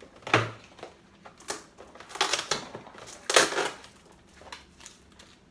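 Toy box packaging crackling and rustling in several short bursts as a doll is pulled free of its fastenings.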